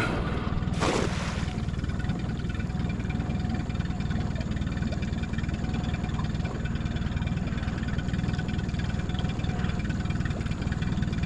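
Boat's outboard motor idling steadily with a low rumble. About a second in, a brief splash-like rush of noise, typical of a cast net landing on the water.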